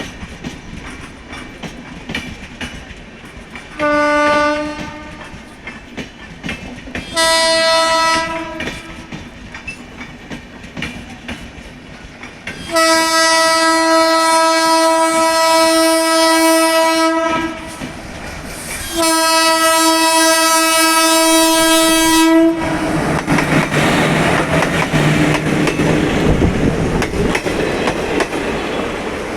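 Indian Railways locomotive's twin-tone horn: two short blasts, then two long blasts of a few seconds each. After that the train runs past, a loud steady rush of wheel and track noise with clickety-clack.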